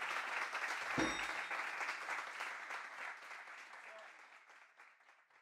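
Audience applauding, fading away to nothing, with a single low thump about a second in.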